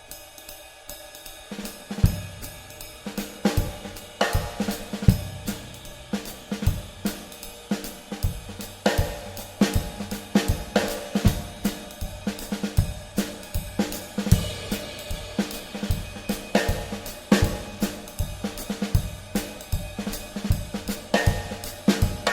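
Background music with a steady drum-kit beat, cymbals and hi-hat, which comes in fully about two seconds in.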